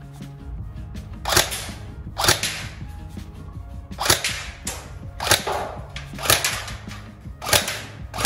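Tokyo Marui next-generation HK416D electric airsoft rifle fired semi-auto, about six single sharp shots roughly a second apart.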